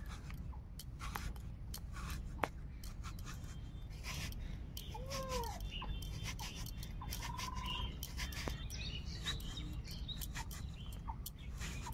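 Small irregular crisp clicks of raw taro being slit against a boti, a curved iron blade fixed upright on a stand, over a low steady rumble. An animal call rises and falls once about five seconds in.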